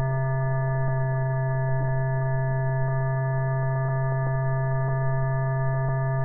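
Steady electrical hum of several tones at once, the lowest the strongest, with a few faint clicks scattered through it.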